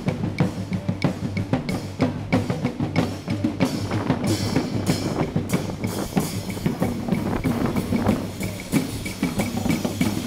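Street drummers playing drums with sticks: bass drum and snare hits in a fast, steady beat.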